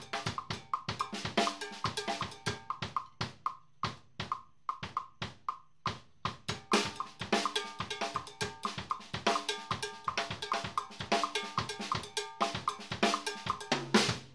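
Drum kit playing a Latin groove: a left-foot pedal strikes a cowbell in a clave pattern against a tumbao pattern on the bass drum from the right foot, with sticks playing drums over it. The strokes thin out for a few seconds partway through, and everything stops at once near the end.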